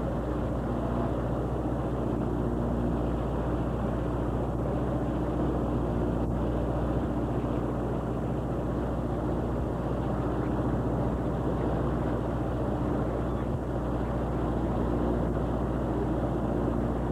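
Fishing boat's engine running in a steady low drone, mixed with wind and sea noise on the microphone.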